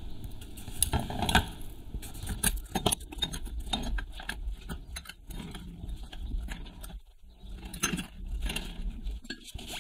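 Stainless steel exhaust pipe sections clinking and tapping against each other and the steel bench top as they are handled and marked, a scatter of light irregular clicks.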